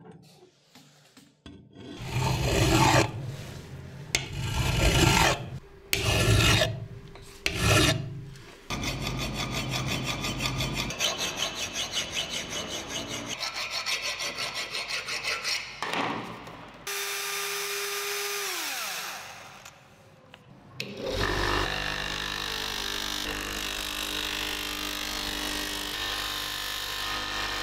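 Hand file rasping over a small steel pin: a few slow, loud separate strokes, then a fast, even run of strokes. A motor's whine then falls away, and near the end a bench polishing wheel runs steadily while the pin is buffed against it.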